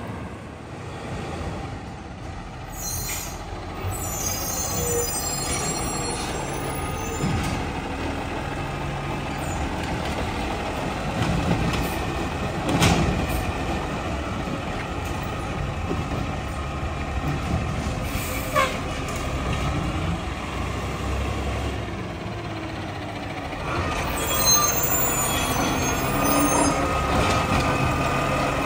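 Ginove Rotopac side-loader garbage truck's diesel engine running as it drives along and pulls up to the curb, with sharp air-brake hisses a couple of times and some high brake squeal.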